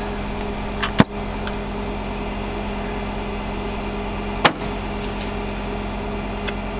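Steady hum of an idling truck engine, with two sharp clicks, about a second in and again past the four-second mark, and a fainter one near the end.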